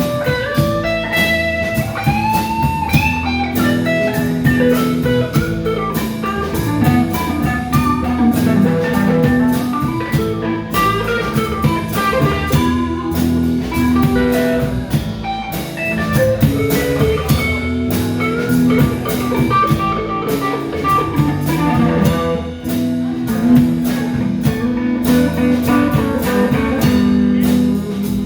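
Instrumental blues-rock band jam: a guitar plays a lead line with bent notes over bass and a drum kit keeping a steady beat.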